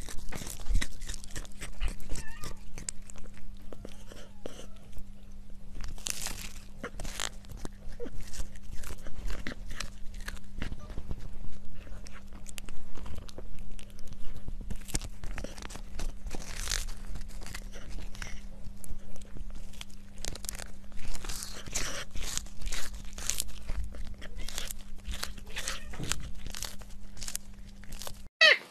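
Cat gnawing on a dry treat held in its paws, close to the microphone: irregular crunching bites throughout over a steady low hum.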